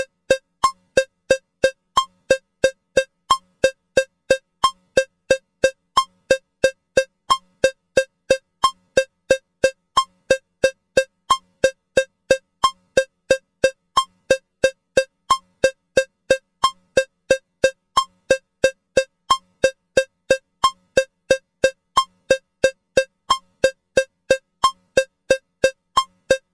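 Metronome cowbell clicks at 180 beats per minute, about three sharp pitched strikes a second, evenly spaced, with a slightly different stroke every fourth beat marking the 4/4 bar.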